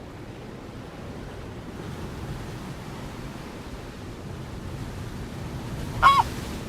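Steady rushing background noise with one short, loud bird call about six seconds in, a clear note that drops in pitch at its end.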